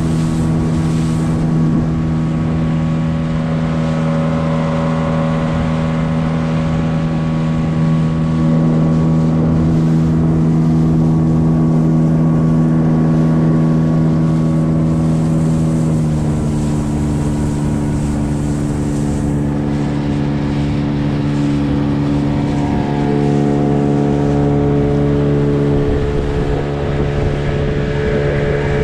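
Gladiator 9.9 hp outboard motor running steadily under way, its pitch stepping slightly lower about halfway through.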